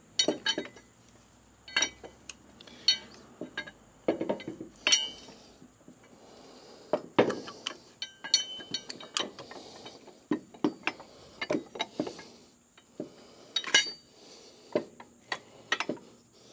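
Steel U-bolts being worked into the sleeved holes of an aluminum suspension housing: irregular metal clinks and knocks, some with a short ring.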